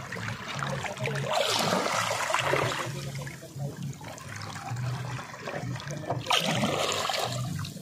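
Water sloshing and splashing in two swells, about a second and a half in and again about six seconds in, over a low hum that pulses on and off.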